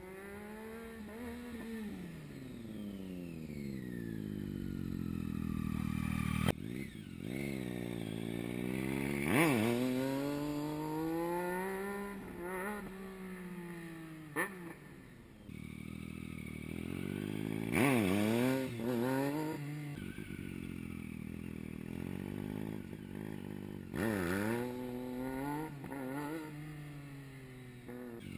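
Triumph Street Triple 675's three-cylinder engine heard from across the lot, rising and falling as the bike rides around, with several sharp revs that go with wheelie attempts.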